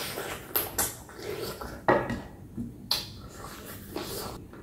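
Close-up mouth sounds of eating chicken feet pickled with lemongrass and kumquat: wet chewing, sucking and an irregular scatter of sharp lip smacks and clicks.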